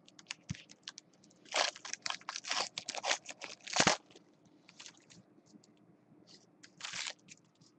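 Crinkling and tearing of a Diamond Kings trading-card pack wrapper being ripped open, a cluster of short crackles starting about a second and a half in, then scattered crinkles and another short burst near the end.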